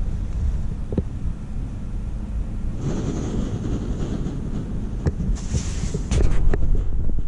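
Small canister gas stove under a titanium mug, its burner hiss growing about three seconds in as the valve is turned up, over wind rumbling on the microphone. A few sharp clicks are scattered through.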